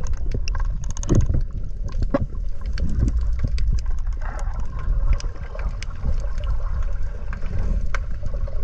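Underwater sound picked up by an action camera in its housing while freediving in a kelp forest: a steady low rumble of water moving around the housing, with scattered sharp clicks and crackles and a brief knock about a second in.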